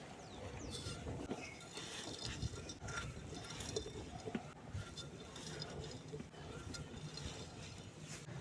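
Grainy cement sand crumbling and crunching: a dense run of small irregular crackles and clinks, with a few sharper cracks about three and four seconds in.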